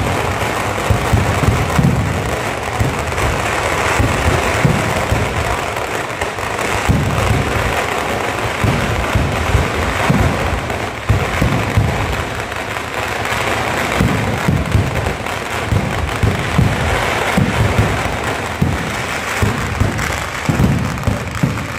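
Ground-level fireworks going off in a dense, continuous barrage: rapid bangs and crackling with many low thumps close together.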